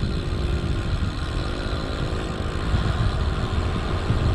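Wind rushing and buffeting over the microphone of a road bike moving fast downhill, with the steady hum of a nearby motor vehicle's engine underneath.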